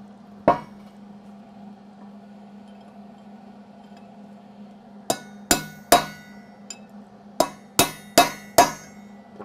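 Hand hammer striking a drift held in the bore of a truck wheel hub, knocking out a bearing race that has been welded to loosen it. One blow about half a second in, then three blows about five seconds in and four more near the end, each a sharp metallic ring.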